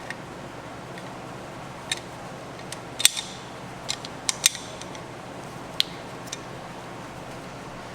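Several short, sharp metallic clicks and clinks from hand tools being handled at a brake caliper, over a steady background hiss.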